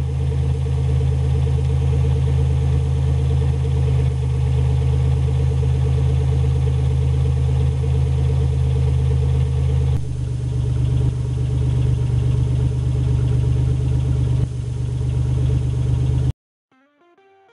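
A 1998 Chevrolet Lumina's 3.1-litre V6 running at a steady idle through an open exhaust, with the stock exhaust system removed. The note is loud and deep and cuts off suddenly about a second before the end.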